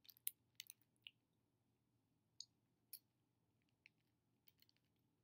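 Near silence broken by faint, short clicks: a cluster in the first second, then a few scattered single clicks.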